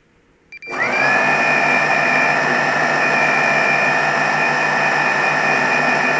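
Brushless motors and propellers of a 4-inch FPV quadcopter (1408-size motors, 2850–3000KV) spinning up suddenly just under a second in, after a couple of faint clicks, then holding a steady high-pitched whine at low throttle.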